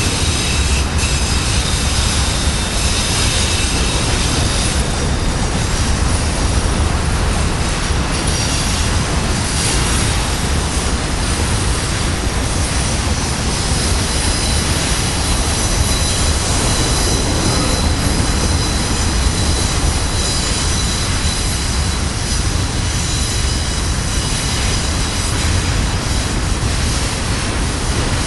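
Freight train of auto rack cars rolling past at close range: a steady, loud rumble of steel wheels on the rails. A few clicks come near the start, and a faint high wheel squeal fades out over the first several seconds.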